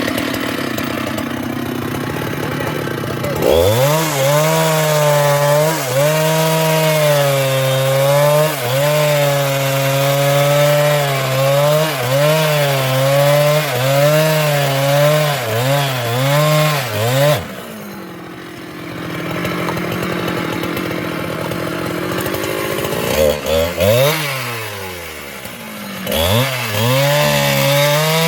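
Husqvarna chainsaw running at full throttle, cutting into a sengon trunk, its pitch dipping and recovering as the chain bites. About halfway through it drops back, then is revved briefly a couple of times and goes back into the cut near the end.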